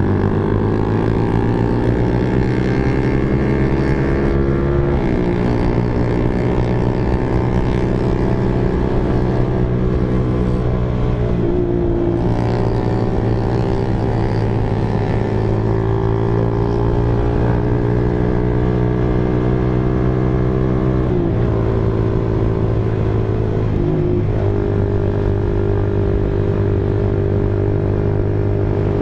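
Honda Sonic 150R's single-cylinder four-stroke engine running while the bike is ridden, climbing in pitch over the first couple of seconds as it accelerates, then holding a steady cruise with a few sudden shifts in pitch as throttle and gear change.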